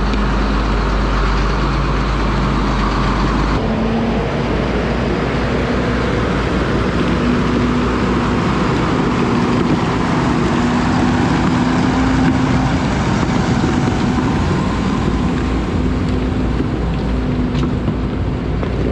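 Farm tractors' diesel engines running as a Case IH Magnum and John Deere tractors pull out of the machine shed and past close by, swelling a little as one passes. The sound changes abruptly about three and a half seconds in.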